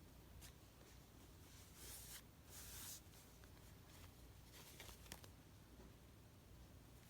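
Faint scissors cutting through fabric: two short scraping cuts about two to three seconds in, with a few light handling clicks around them.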